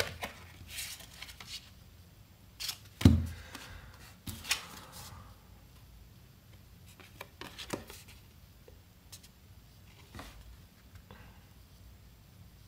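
Stiff cardstock trading cards being handled and sorted on a cutting mat: a string of short rustles, slides and flicks, with a louder thump about three seconds in, then sparser small clicks.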